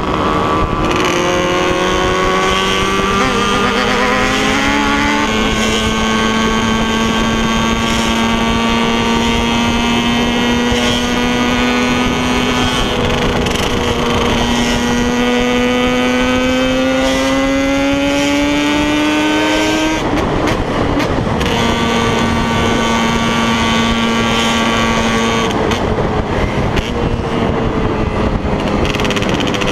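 Two modified Yamaha two-stroke motorcycles, a DT and an RD bored out to 421cc, running hard at high revs. Their engine notes hold and slowly climb, two pitches at once at times, and briefly drop away about two-thirds of the way through before picking up again.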